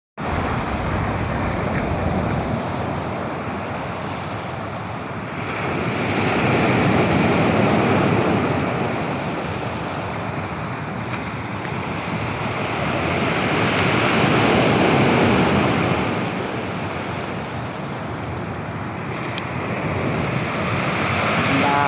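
Black Sea surf breaking and washing on the shore, rising in slow surges about every eight seconds, with wind buffeting the microphone. The sea is rough, too rough for swimming.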